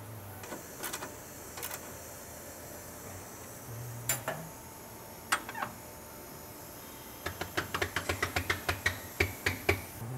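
A few scattered metal clicks, then a hand ratchet clicking quickly and evenly, about six or seven clicks a second, for the last few seconds as a trailing-arm bolt is tightened.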